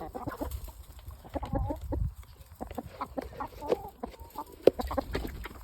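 A flock of backyard chickens clucking: many short, overlapping calls from several hens as they feed on a snack. There is one sharp click about four and a half seconds in.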